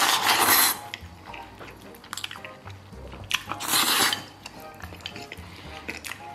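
A person slurping noodles in two loud slurps, one at the start lasting about half a second and another about three and a half seconds in, with small mouth clicks and chopstick-on-bowl taps between them.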